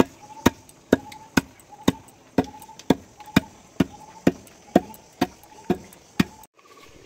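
Wooden pestle pounding rice grains in a deep wooden mortar: a steady run of dull thumps, about two a second, grinding the rice into flour. The pounding stops shortly before the end.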